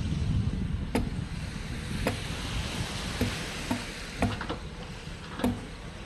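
Small waves washing onto a sandy beach, their hiss swelling about two seconds in, under a low rumble of wind on the microphone, with a few sharp clicks.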